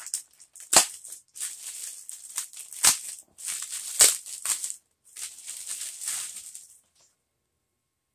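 Clear plastic poly bag crinkling in bursts as it is opened and a folded shirt is pulled out, with three sharp crackles; it stops about seven seconds in.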